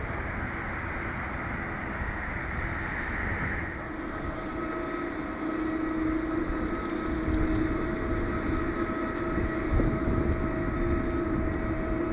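Airliner jet engines running on the ground at idle: a steady rushing noise for the first few seconds, then, from a cut about four seconds in, a steady whine with several held tones from a taxiing Boeing 787-9.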